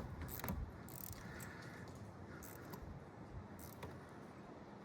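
A few faint metallic clicks and taps from a hand wrench tightening the clamp bolt on a battery cable terminal, mostly near the start and a few scattered later.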